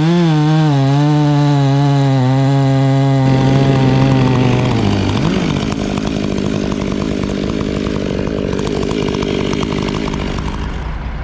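Chainsaw running at high revs with a wavering pitch. About five seconds in the pitch drops and a rougher, noisier sound follows, as of the saw cutting into wood.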